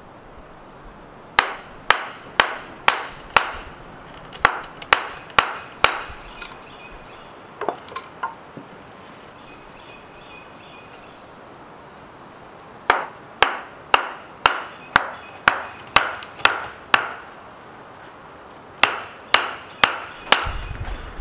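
Wooden mallet striking the back of a hatchet to drive its blade into the end grain of a wooden post: runs of sharp wooden knocks about two a second, broken by short pauses.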